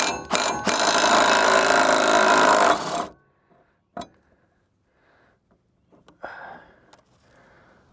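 Small impact wrench hammering on a mower blade bolt for about two and a half seconds to break it loose, then stopping, followed by a single click about a second later.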